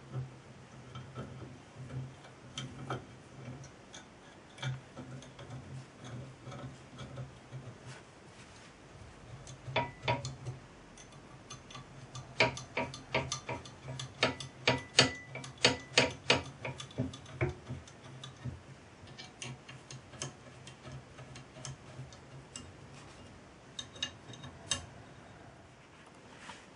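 Small metallic clicks and taps as a stepper motor is screwed onto a metal frame plate with a hex key, coming irregularly and bunching into a quick run of sharper clicks in the middle.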